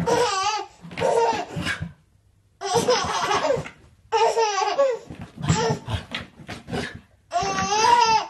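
A baby laughing in about six high-pitched bouts, with short pauses between them.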